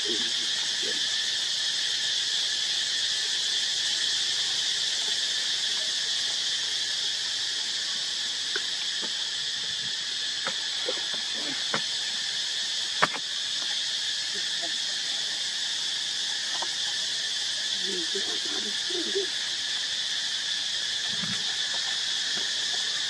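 Insect chorus, a steady high-pitched drone, with a single sharp click about halfway through.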